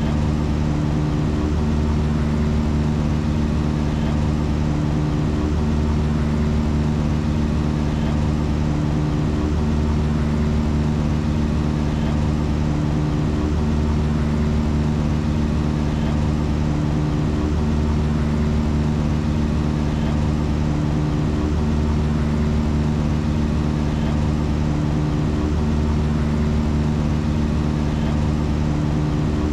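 A steady, loud, low engine-like drone made of several held tones that shift in a loop repeating about every four seconds, with a faint tick at each repeat.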